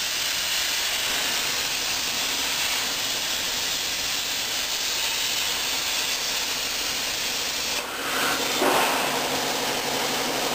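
Plasma cutter arc from a Miller 375 Xtreme on a CNC table cutting thin aluminum sheet: a steady loud hiss. About eight seconds in, the hiss breaks and a louder, rougher noise follows for about a second as the cut is interrupted, typical of the sheet catching under the torch. The air hiss then carries on.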